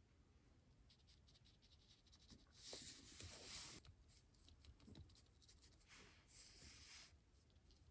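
Faint scratchy rubbing of a cosmetic sponge dabbed against a small model part and the paper work surface, in two short stretches of about a second each, a few seconds in and again near the end, with a few light ticks of handling.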